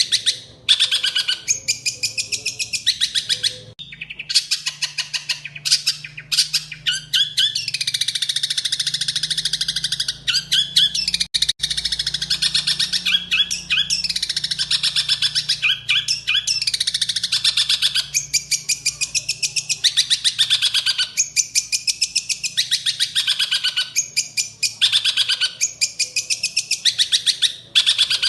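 A songbird singing a dense, rapid, chattering song of fast-repeated notes and sweeping trills, in long phrases broken by brief pauses.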